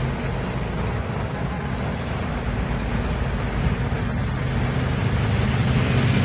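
A motor vehicle engine running, a steady low rumble that grows slightly louder near the end.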